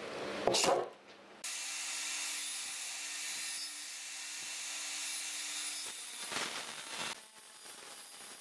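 A cordless impact driver drives a screw into a wooden board, rattling and shifting in pitch, and stops about a second in. After that comes a steady hiss with a faint low hum, with a few short knocks near the end.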